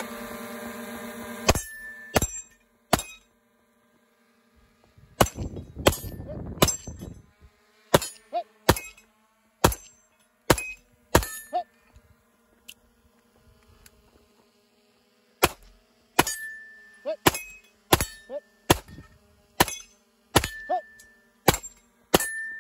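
A shot timer's start tone, then a SIG P320 X-Full pistol fired in quick strings at steel targets: about two dozen shots, mostly half a second to a second apart, with a pause of a couple of seconds midway. Several shots are followed by a short ring of struck steel.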